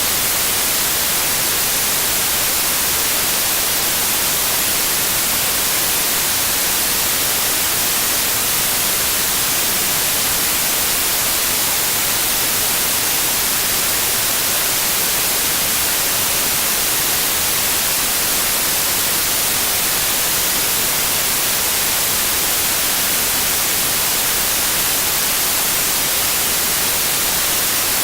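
Steady synthetic white noise: an even, unchanging hiss, strongest in the highs.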